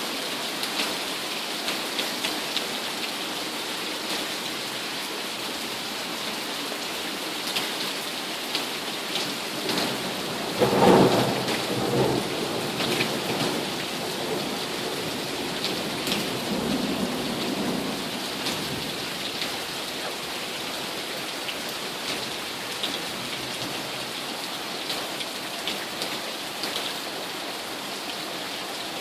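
Heavy rain with hail pelting down, with scattered sharp ticks of stones striking. A thunderclap cracks loudly about eleven seconds in and rumbles on for several seconds before fading back under the rain.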